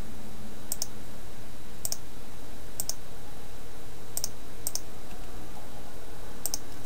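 Six sharp, separate clicks of a computer mouse and keyboard at irregular spacing, over a steady low electrical hum.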